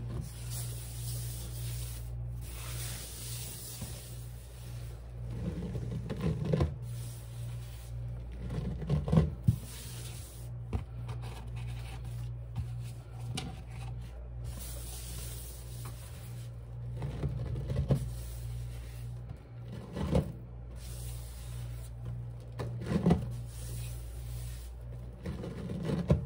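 Hands rubbing and scraping cleaning powder on a sponge, with a few louder knocks of handling, over a steady low hum.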